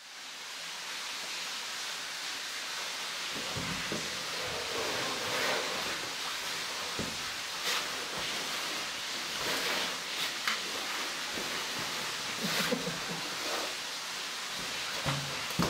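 Steady rushing of an underground waterfall filling a cave chamber. It is broken from a few seconds in by scattered knocks and scrapes as a caver climbs over the rock.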